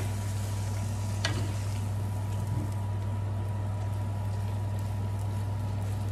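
Chicken and vegetables simmering in sauce in a frying pan while being stirred with a wooden spatula, with one sharp knock of the spatula about a second in, all over a steady low hum.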